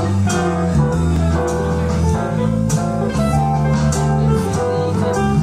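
Live band playing a jazzy instrumental: guitar over a walking low bass line, with drum and cymbal hits keeping time.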